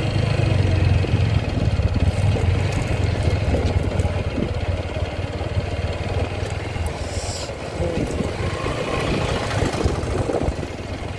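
Small motorcycle engine running at low speed as the bike rolls along a dirt track, with a steady low hum that eases a little about seven seconds in.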